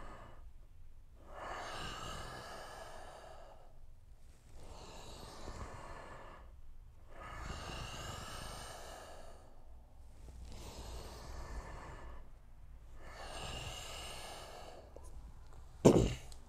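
A man breathing slowly and audibly, in and out about every three seconds, paced to a floor exercise. A single sharp thump near the end is the loudest sound.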